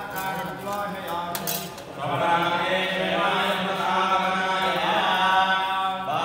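Priests chanting Hindu ritual mantras in a steady, drawn-out chant that grows fuller about two seconds in.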